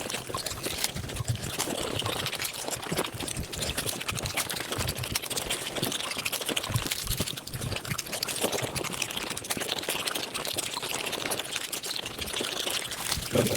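Close-miked eating sounds of puri (luchi) sped up about fivefold: a dense, continuous run of rapid mouth clicks and smacks from chewing the fried flatbread.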